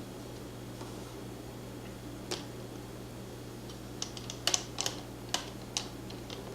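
Light, sharp clicks of small hard objects being handled: one click, then a quick scatter of about ten small ticks over a couple of seconds, over a steady low hum.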